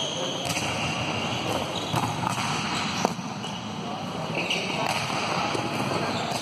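Volleyballs being struck and bouncing on an indoor court in an echoing gym, with a sharp hit about three seconds in.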